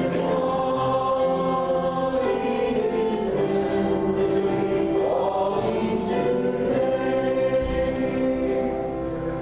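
A church congregation singing a hymn together as a choir of many voices, holding long notes; the singing eases off slightly near the end.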